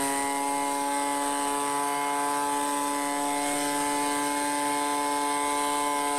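Ryobi 25cc two-stroke handheld jet fan gas blower running steadily at full throttle: one high, even engine note with a high airy hiss from the fan.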